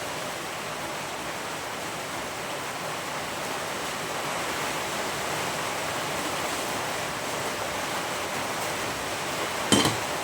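Heavy rain drumming on the workshop roof: a steady, even hiss. Near the end there is a single short, sharp knock.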